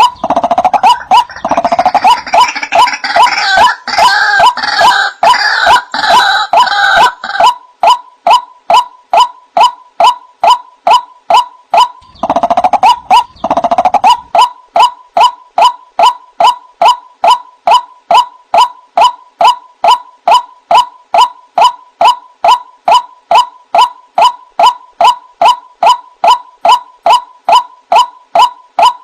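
White-breasted waterhen (ruak-ruak) calls: a repeated short "wak" note about twice a second, with a louder, harsher chorus of calls over it for the first seven seconds or so and again briefly around twelve seconds in.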